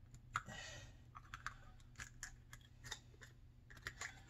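Masking tape being picked at and peeled off a freshly powder-coated engine cylinder: faint crinkling and tearing with small scattered clicks, and one longer rip about half a second in.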